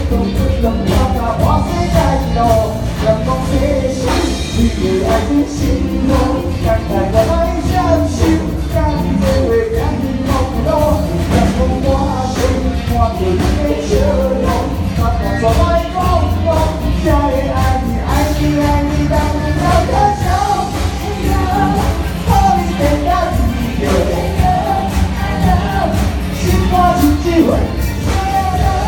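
Live band music with a singer: an upbeat pop song with a steady beat, played loud and unbroken.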